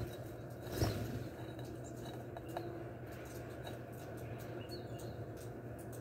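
Faint scattered ticks and taps over a steady low hum, with one brief louder rush about a second in.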